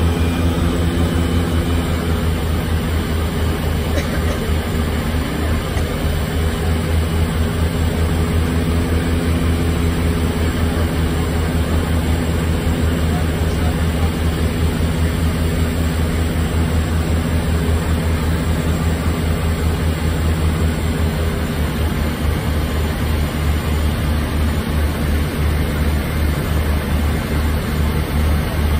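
Twin Otter's two PT6A turboprop engines and propellers droning steadily, heard inside the cockpit on approach: a strong low hum with several steady tones over a rushing haze. Some of the higher tones fade and shift about two-thirds of the way through.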